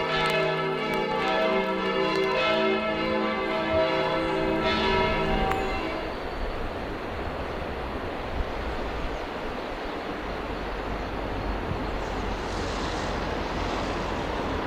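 Church bells ringing, several bells striking over one another. About five seconds in they cut off abruptly and a steady rushing noise takes over.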